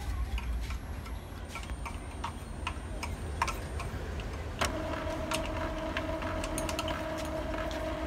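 Epson EcoTank inkjet printer running a head cleaning: its mechanism clicks and ticks, then a little past halfway a motor starts with a sudden, steady hum, the cleaning cycle's pump and carriage at work.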